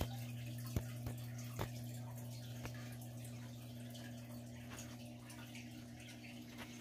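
A steady low hum with a few light clicks in the first few seconds.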